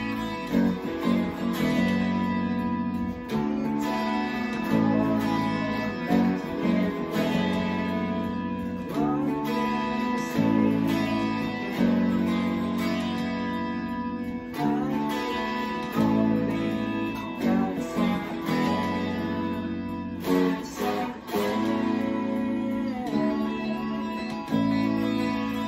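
Electric guitars playing an instrumental rock passage together: strummed chords that change every second or two, with picked notes over them.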